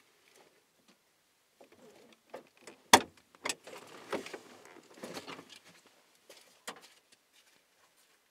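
Handling noises from someone moving about inside a parked car with the engine off: a sharp click about three seconds in and another just after, then rustling and small knocks, and a last click near the end.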